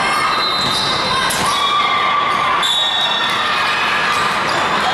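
Volleyball play in a large gym hall: ball hits and thuds on the court, with short high shoe squeaks, over steady crowd chatter.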